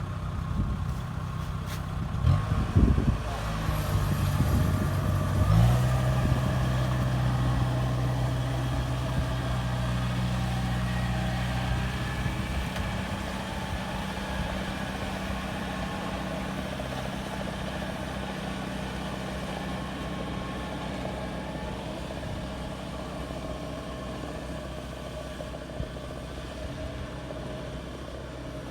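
Diesel engine of a Kubota rice combine harvester running steadily, with a few knocks in the first three seconds. Its note shifts about five and a half seconds in and is loudest until about twelve seconds, then it settles a little quieter.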